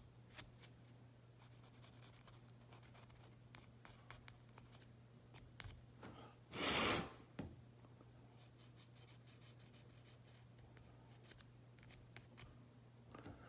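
Red Sharpie permanent marker being stroked over the end of a small clear plastic light piece: faint, quick scratchy strokes, with one louder rush of noise about halfway through.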